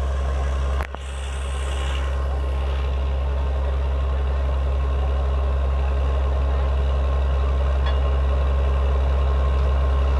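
Borewell drilling rig's engine and compressor running under load, a loud, steady deep drone with a thin steady whine over it. The drone drops sharply for a moment about a second in, then builds back up.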